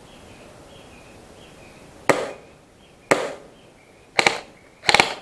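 Airsoft gunshots: single sharp cracks about two and three seconds in, then a quick pair and a short rapid burst of several shots about a second apart near the end.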